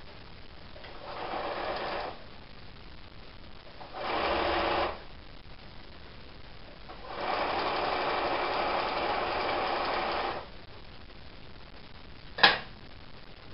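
Domestic electric sewing machine stitching a fabric strip onto a quilt block in three runs, two short and then one of about three seconds, with pauses between. A single sharp click near the end.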